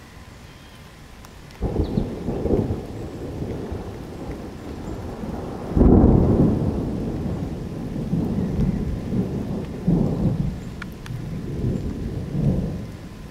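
Thunder rumbling. A low roll starts suddenly about a second and a half in, is loudest around six seconds, and swells twice more before easing off near the end.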